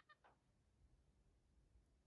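Near silence, with a few short, faint high squeaks from a capuchin monkey right at the start, then only a low rumble.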